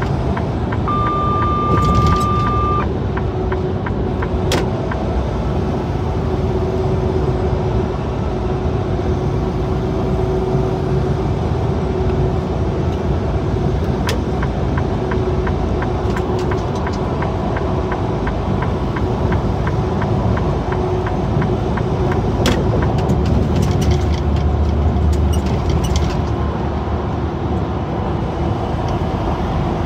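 Semi-truck running at highway speed, a steady engine rumble and road noise heard from inside the cab. A short electronic beep sounds about a second in, and occasional clicks and rattles come through.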